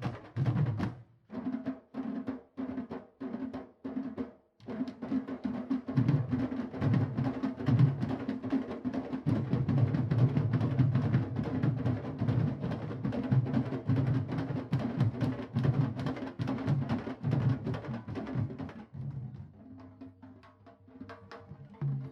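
Candombe drum group of chico, repique and piano drums playing in rehearsal. For the first few seconds there are separate, evenly spaced strokes at about two a second. Then the full group comes in with dense, driving drumming, which thins out and drops in level near the end.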